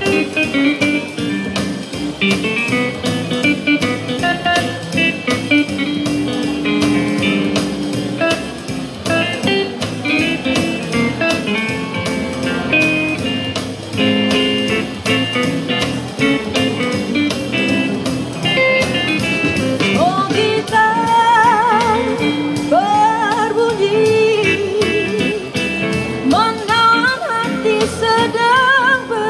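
Upbeat twist-style pop music, played live, in an instrumental break: a guitar-toned lead line of quick notes over a steady drum beat, with an electronic keyboard. About two-thirds of the way through, a wordless wavering vocal line with rising scoops joins in.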